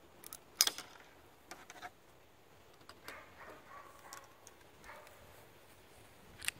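Excel Arms Accelerator .17 HMR pistol misfiring: a sharp click of the hammer falling on a rimfire round that does not go off, with no shot, followed by a few lighter metallic clicks. Near the end, another sharp click as the action is worked. The hammer is not striking the rim hard enough to fire it.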